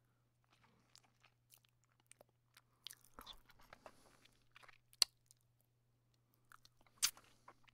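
Wood bonfire crackling faintly, with scattered sharp pops, the loudest about five and seven seconds in.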